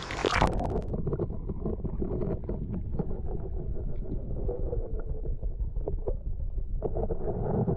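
A splash as the camera goes into the river, then muffled underwater sound: a low rumble of moving water with scattered faint clicks and knocks.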